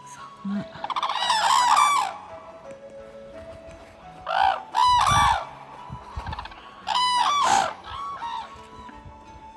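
Red-crowned cranes calling: loud, pitched calls in three bouts, about a second in, around four to five seconds, and again near seven seconds. Soft background music underneath.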